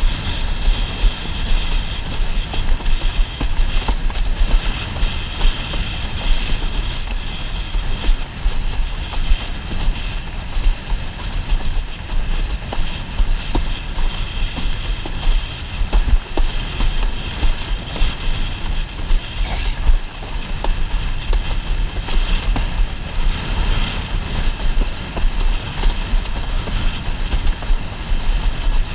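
Windsurf board sailing at speed over chop: water rushing and hissing along the hull, with frequent irregular knocks and slaps as the board hits the waves. Heavy wind rumble on the boom-mounted camera's microphone.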